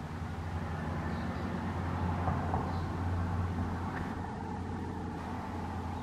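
Low, steady rumble of a motor vehicle, swelling a little about two seconds in and easing off again.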